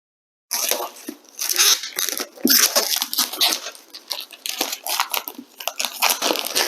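Dense crinkling and rustling of product packaging, cardboard and plastic wrap, handled and torn with many quick sharp crackles. It starts abruptly about half a second in after dead silence.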